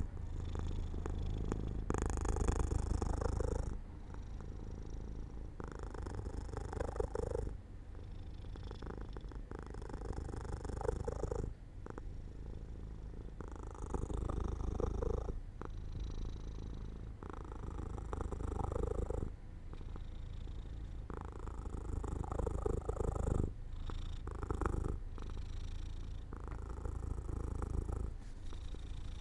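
Domestic cat purring continuously, the purr swelling and easing with each breath about every three and a half to four seconds.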